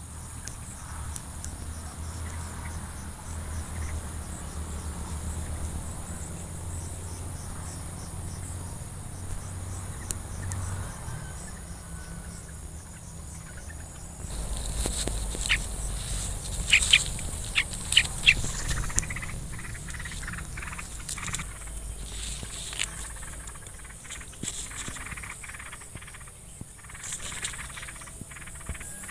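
Crickets or similar field insects shrilling steadily on one high pitch. About halfway through comes a cluster of short, sharp, loud chirps or clicks, along with a low rumble.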